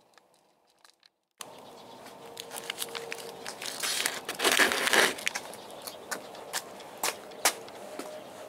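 Near silence, then from about a second and a half in, footsteps crunching on gravel with clicks and rustles of things being handled. The loudest crunching comes about halfway.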